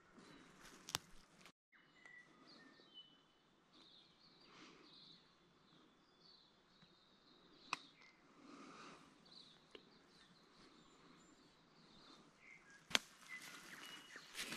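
Quiet bush with faint high bird chirps and a few sharp twig snaps, then footsteps crunching through dry leaf litter and twigs near the end.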